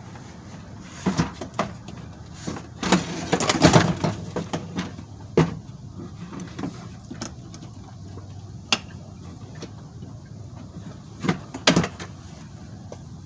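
Plastic interior door trim panel of a Chevy Tahoe being slid up and worked off the door: scattered clicks and knocks of the panel against the door, with a busier stretch of rustling and knocking about three seconds in and a pair of knocks near the end.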